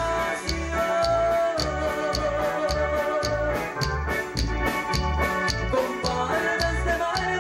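A live band playing music with a steady beat of about two low hits a second and ticking cymbals, over held, organ-like keyboard notes.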